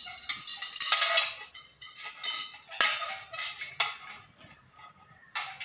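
Stainless steel shoe-rack tubes and frame clinking and knocking together as they are handled: several sharp metallic clinks with a short ring, fewer and fainter toward the end.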